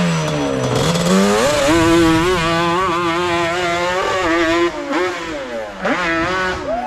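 Off-road motorcycle-type engine revving hard. Its pitch climbs about a second in, then wavers up and down rapidly as the throttle is worked. It dips sharply near the end before rising again.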